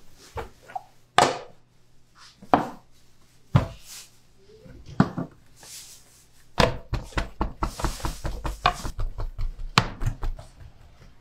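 Sharp knocks and slaps of dough being worked by hand on a wooden board: four single knocks about a second apart, then a quick run of taps for about three seconds that ends in one sharp knock.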